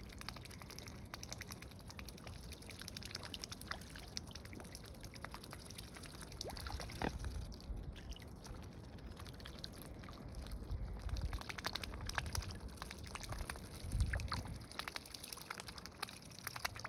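Water splashing and dripping, with many scattered clicks and a low thump about fourteen seconds in.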